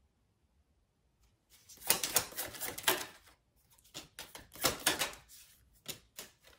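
A deck of tarot cards being shuffled by hand: bursts of quick papery flicks and rustles starting about a second and a half in, with a couple of single flicks near the end.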